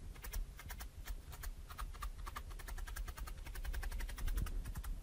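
Rapid, irregular clicking of a felting needle punching into wool roving over a foam mat, many small pokes in close succession.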